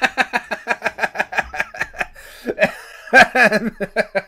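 A man laughing: a long run of quick, even chuckles, then a louder burst of laughter about three seconds in.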